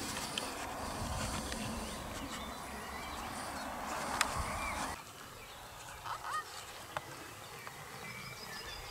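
Outdoor ambience with faint, short bird calls over a low rumble. The level drops about five seconds in, and a brief call comes about a second later.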